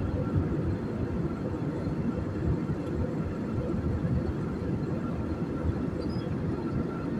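Airbus A320 passenger-cabin noise in flight: a steady low rumble of engine and rushing air, heard from a window seat over the wing, with a faint steady high tone.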